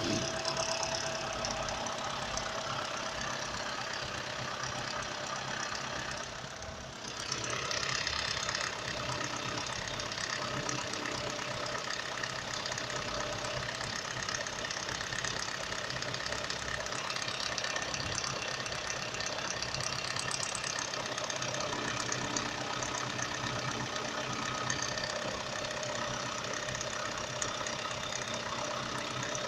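Nissan X-Trail engine running steadily with a knock, the fault the car is being recorded for. The sound drops briefly about six seconds in, then carries on as before.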